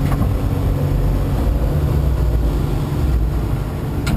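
Komatsu PC300LC-7 excavator's diesel engine running steadily with a low rumble, heard from inside the cab while the upper house swings around.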